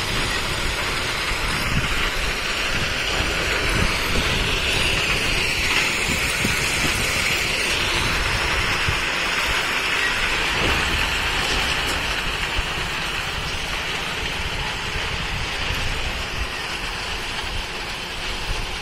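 Crushed-stone ballast pouring from the bottom doors of slowly moving railway hopper wagons onto the track: a steady rushing rattle of stones, with the wagons rolling along the rails.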